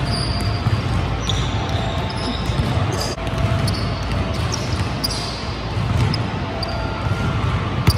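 Basketball dribbling and bouncing on a gym floor, with sharp repeated bangs over a steady gym din and short high squeaks scattered throughout.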